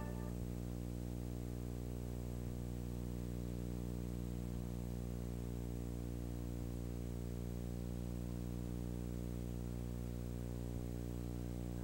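Steady low electrical hum with faint hiss and no program sound: mains hum carried on an old videotape transfer.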